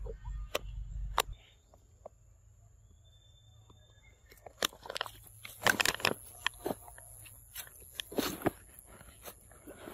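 Scattered clicks, crackles and rustles like footsteps on dry leaves and stone, thickest in the second half, over a steady high-pitched drone.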